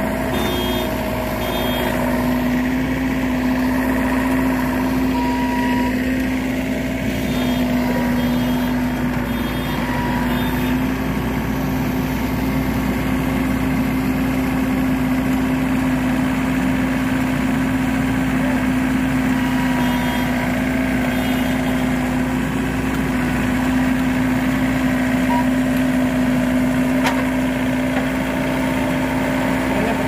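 Tracked rice combine harvester's diesel engine running steadily, with a constant even hum, while the machine crawls slowly forward.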